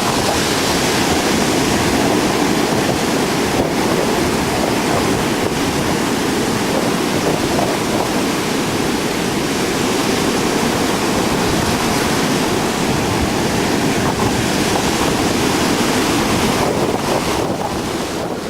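Heavy storm surf breaking and washing in a steady roar, with strong wind buffeting the microphone; the rush thins slightly near the end.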